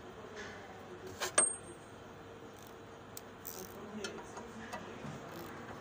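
Metal clinks and light taps as a clutch pressure plate is handled onto the flywheel over the alignment bar. The loudest is one sharp metallic clink with a short high ring about a second and a half in, followed by a few softer ticks.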